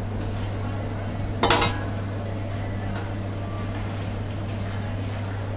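A metal pizza peel clanks against the stone floor of a brick pizza oven, once and loudly about a second and a half in, over a steady low hum.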